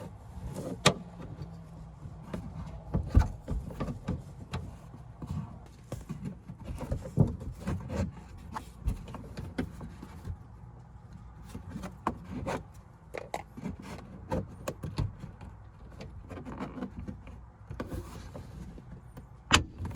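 Plastic C-pillar trim on a 2015 Toyota Camry being pried and flexed by hand, with irregular knocks, taps and creaks. Near the end comes a sharp snap as one of the plastic retaining clips pops out.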